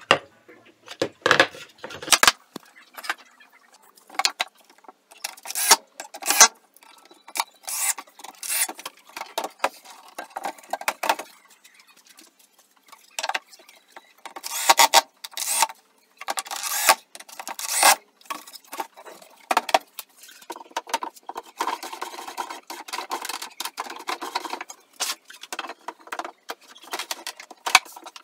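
Workshop handling sounds: a series of short knocks and clatters of wooden parts on a workbench, with brief runs of a cordless drill driving screws into wood about halfway through. A longer stretch of scraping of wood on wood follows in the second half.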